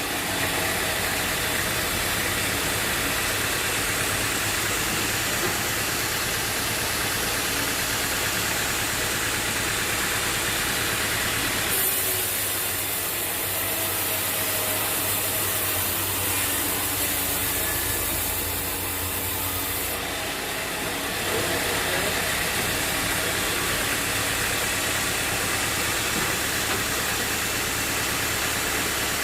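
Portable bandsaw sawmill running steadily: an engine note under a continuous hiss, which turns brighter and sharper for several seconds midway.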